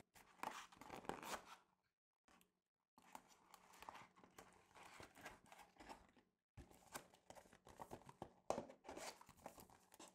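Faint rustling and crinkling of a thin cardboard volcano cone being handled and bent into shape, with a few louder crinkles near the end.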